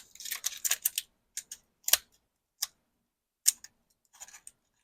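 Pokémon trading cards being handled and slid against one another as a pack is flipped through: a run of light, irregular clicks and short swishes, busiest in the first second, then sparser.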